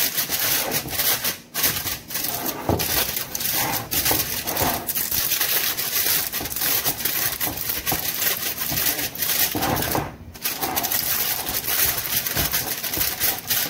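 Aluminium foil crinkling and crackling as it is pressed and crimped down around the rim of a baking pan. It stops briefly twice.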